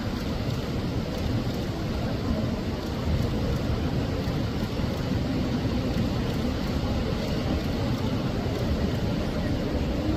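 Steady low rumbling background noise with faint voices mixed in.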